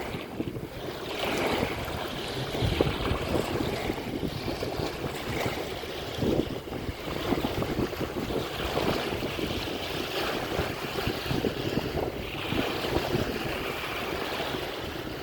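Waves washing onto the shore in repeated swelling surges of hiss, with wind gusting and buffeting the microphone.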